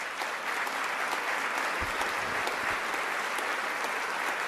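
Audience applauding: many people clapping at once in a steady, dense patter.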